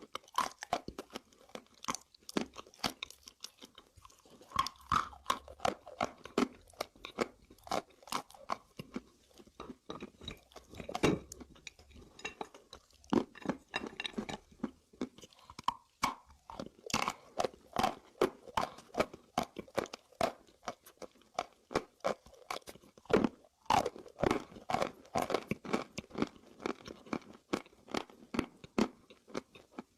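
A person biting and chewing hard chalk and slate pencil close to the microphone: a dense run of sharp, dry crunches, several a second, with brief pauses between bites.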